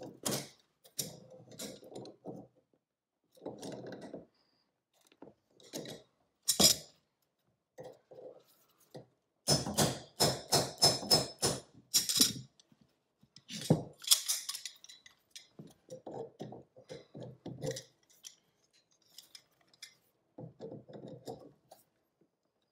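Hand tools working a steel pipe nipple where a radiator valve came off: pliers and a chisel scraping and clinking on the metal in short spells, with a quick run of sharp metallic knocks about ten seconds in.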